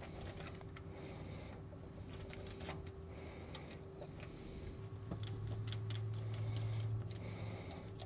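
Hand tools working bolts by hand: a run of quiet, irregular metallic clicks and ticks over a faint steady hum.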